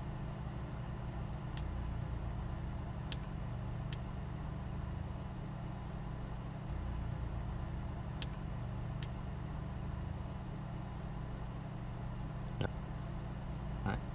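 Steady low background hum, with a few faint clicks scattered through and two soft knocks near the end.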